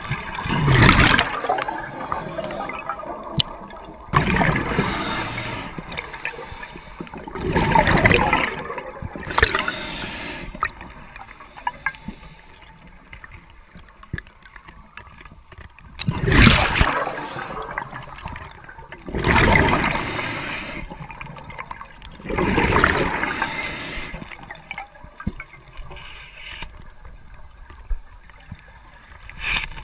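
Scuba diver breathing through a regulator underwater: exhaled bubbles rush out in loud, gurgling bursts about a second long every few seconds, with a quieter hiss between them.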